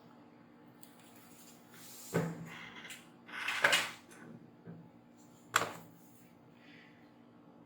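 Hard objects being handled and set down on a workbench: a clattering knock about two seconds in, a longer rattle near the middle and a sharp knock a couple of seconds later, over a faint steady hum.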